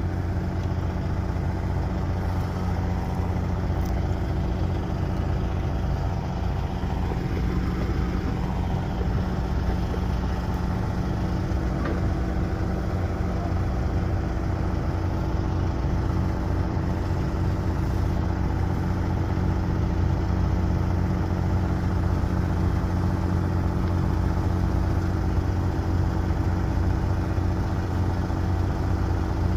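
Steady low engine hum: a constant drone with several held tones above it, unchanging in pitch and level.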